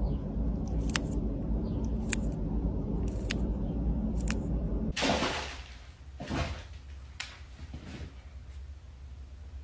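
Tortoise biting into a dandelion leaf, a crisp crunch about once a second over a steady low rumble. About five seconds in this gives way to a quieter stretch of scrapes and knocks as a cat's plastic cone collar bumps against a door.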